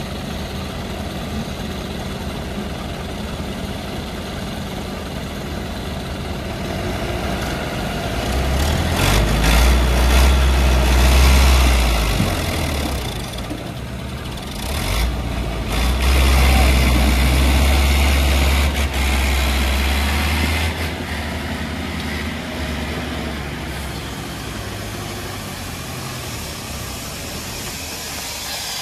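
Diesel engines of a tractor and a log-laden Mercedes-Benz truck running, then working hard under load twice for several seconds each as the stuck truck is pulled out of the mud, with a hiss between the two pulls.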